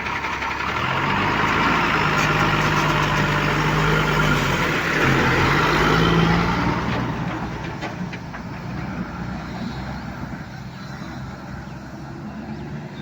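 A heavy vehicle engine running, its pitch dipping and rising about five to six seconds in. It is loudest for the first seven seconds, then fades to a lower level.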